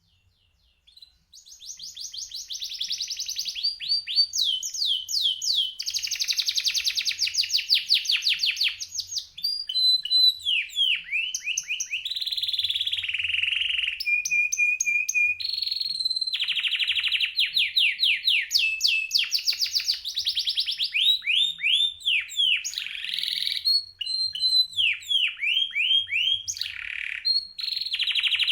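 Male canary singing a long, near-continuous song. It is made of fast trills and rolls of rapidly repeated notes, broken by a few short held whistles and brief pauses, and it starts about a second in.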